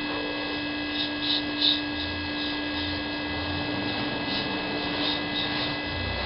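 Steady electrical hum made of several constant tones, with a few short, faint scrapes of a chisel shaving ice.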